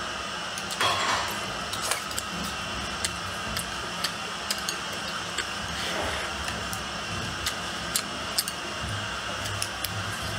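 A person eating with chopsticks: chewing and mouth sounds on small fried fish and braised pork, with scattered short sharp clicks over a steady background hiss.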